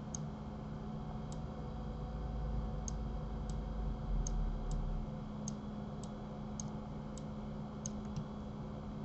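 Faint, irregular clicks of a computer mouse, about a dozen, over a steady low hum.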